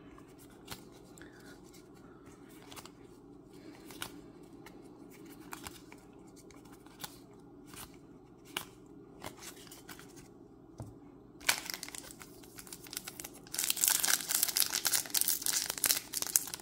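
A foil booster pack wrapper being torn open and crinkled, starting about eleven seconds in after a quiet stretch of a few faint clicks.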